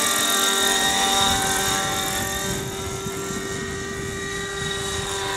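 Radio-controlled scale MD 500 model helicopter flying overhead: a steady, high whine of the engine and rotors, dipping slightly in pitch about halfway and growing a little fainter as it moves away.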